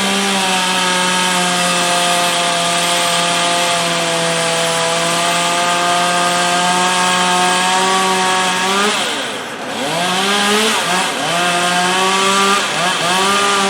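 Chainsaw running at full throttle through a long cut, its pitch sagging slightly under load for about nine seconds and rising again as the cut ends. After that it is revved and let off several times in quick succession.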